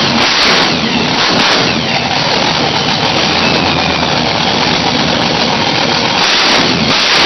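Supercharged V8 of a 2200-horsepower 1967 Camaro running loud and steady, just fired for the first time after a full engine rebuild.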